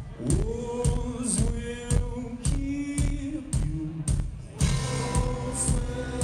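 Live rock band playing a song: a man sings long held notes over guitars and a steady drum beat of about two hits a second, heard from within the audience in a concert hall.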